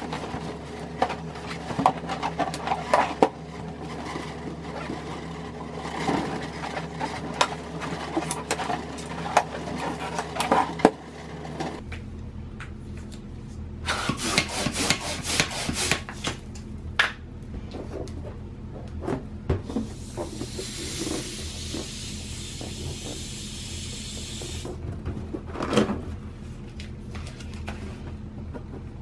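Inflated latex balloons squeaking and rubbing against each other as they are handled and twisted. About halfway through, a hand balloon pump inflates a black latex balloon: a quick run of pump strokes, then a hiss of air for about four seconds.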